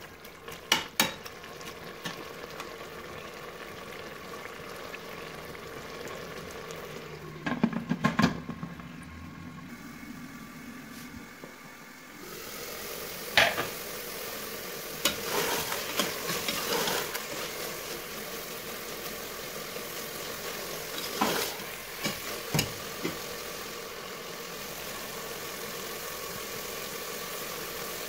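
Mooli gosht curry of radish and meat frying in an open pressure cooker, with a steady sizzle and a metal spoon now and then knocking and scraping against the pot as it is stirred. The sizzle gets louder about halfway through.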